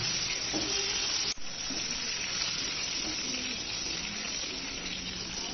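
Potato cubes frying in hot mustard oil in a kadai: a steady sizzling hiss, with a momentary dropout about a second in.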